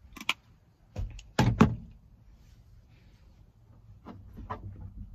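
A few knocks and thumps of a hand working against the back window glass inside a pickup truck's cab. The loudest pair comes about a second and a half in, with weaker taps near the end.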